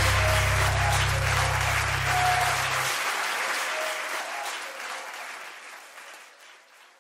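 Audience applause at the end of a live song, over the band's last held chord, which stops about three seconds in; the applause then fades out.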